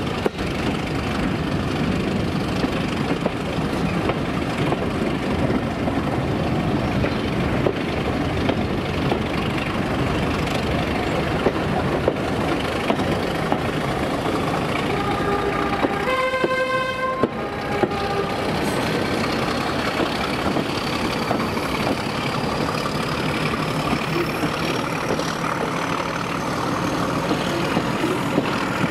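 Diesel-hauled train running with a steady rumble, its two-tone horn sounding low-high-low for about three seconds just past the middle. A faint high whine rises slowly through the second half.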